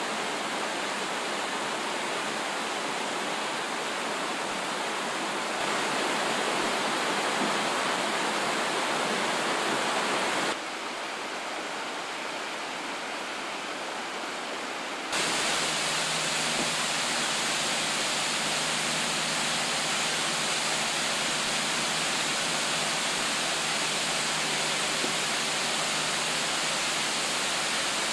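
Rushing water of a stream and waterfalls in a mountain gorge, a steady wash of noise whose loudness jumps abruptly three times.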